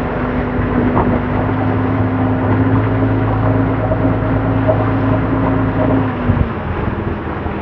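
Boat engine running at a steady speed, then slowing about six seconds in as its hum drops in pitch.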